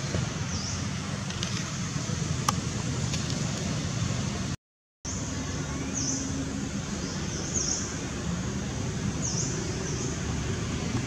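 Outdoor ambience: a steady low rumble of distant traffic, with short high chirps of small birds repeating every second or so. The sound cuts out briefly about halfway through.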